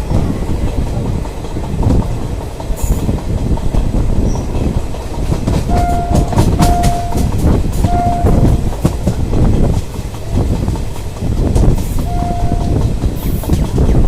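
Indian Railways passenger train heard from on board, its wheels rumbling and clacking over rail joints and points. A train horn sounds in short single-pitch blasts: three about six to eight seconds in, and one more about twelve seconds in.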